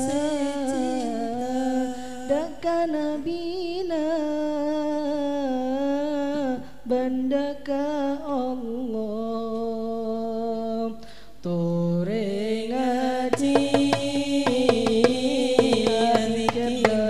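A lead singer chanting a sholawat line alone, in a long ornamented melody with wavering pitch, breaking off briefly about eleven seconds in. About two seconds later the hadrah frame drums (rebana) come in with quick strikes under the voice.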